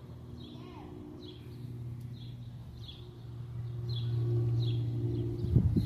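A bird chirping repeatedly, short high chirps about once a second, over the steady low hum of a vehicle engine that grows louder about four seconds in. There is a single knock near the end.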